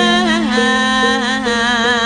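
Female Javanese singer (pesindhen) singing a wavering, ornamented vocal line with gamelan accompaniment, settling into a long held note about half a second in.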